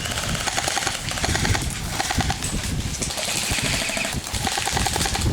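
Airsoft electric guns firing full-auto bursts, a rapid rattle of clicks, over rumbling handling noise on the camera's microphone.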